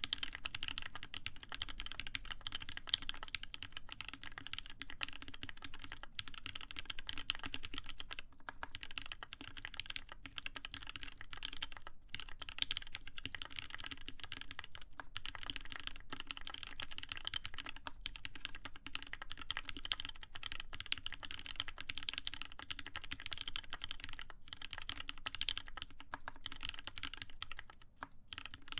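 Steady fast typing on a TGR Alice mechanical keyboard with lubed Cherry MX Black linear switches in a full copper plate, under Hammerworks CRP R4 keycaps: a dense stream of key strokes, with a short pause near the end.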